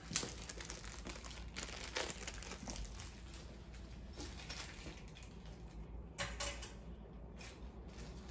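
Faint crinkling and rustling of a small plastic parts bag being handled, with a few soft knocks, the clearest about two seconds and six seconds in.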